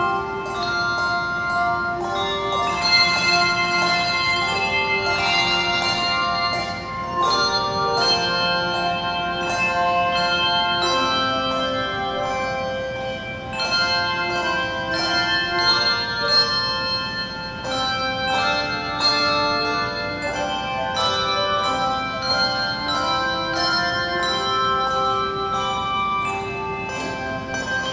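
Handbell choir playing a piece: many tuned handbells struck in a steady rhythm, their notes ringing on and overlapping in chords.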